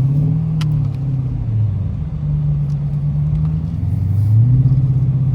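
Dodge Challenger R/T's Hemi V8 revving up, holding, easing off, then revving up again about four seconds in.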